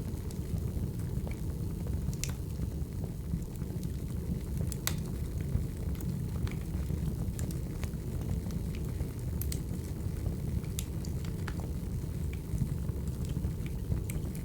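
Firewood fire burning: a steady low rumble of flames with irregular sharp crackles and pops from the burning logs, a few every second.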